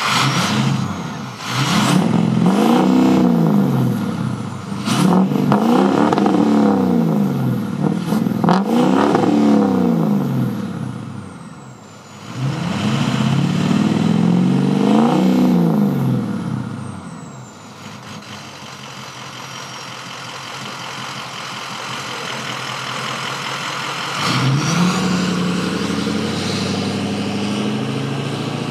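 2004 Ford F-250's 6.0 L Power Stroke V8 turbo diesel through a 4-inch straight-piped exhaust, revved four times while standing, each rev climbing and falling back to idle, with a high whistle fading down after the revs. It then idles, and about three-quarters of the way through it pulls away and drives off.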